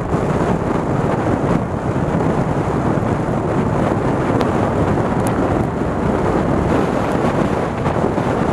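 Heavy wind buffeting a motorcycle-mounted camera's microphone at riding speed in a storm: a loud, steady low rush that hides most of the bike's own sound.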